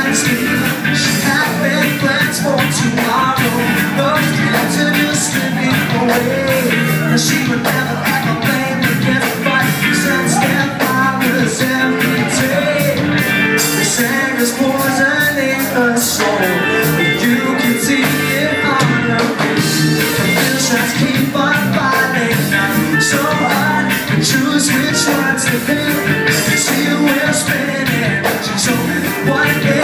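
Live rock band playing loud: electric guitars, bass and drums with steady cymbal strokes, and a singing voice over them.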